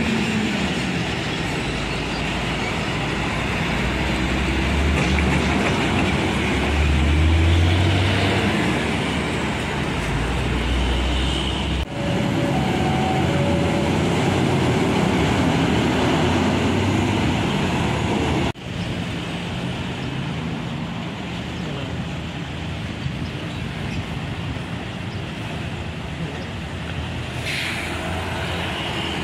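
Heavy diesel trucks, including a UD Quester and a Hino 500, and motorcycles passing on a busy road: deep engine rumble with tyre and traffic noise, swelling and easing as vehicles go by. The sound changes abruptly twice, about twelve and eighteen seconds in.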